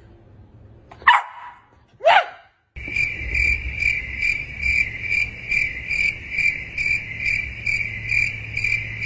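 Two short barks about a second apart, then a cricket chirping steadily: a high, even-pitched chirp repeating about two to three times a second over a low hum.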